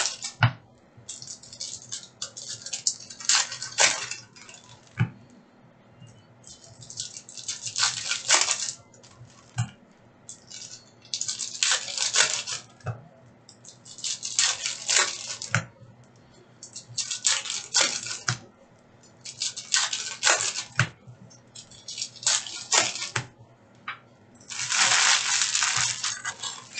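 Foil trading-card packs being torn open and crinkled, with cards handled and tapped, in repeated crackling bursts every two to three seconds.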